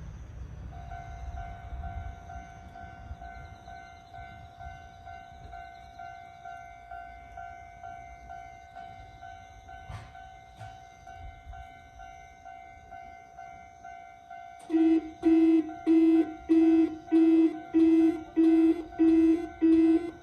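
Railway level-crossing warning alarm of the buzzer-like type: a steady buzzing tone sounds, and about fourteen seconds in a much louder pulsing warning tone joins it at about two beats a second.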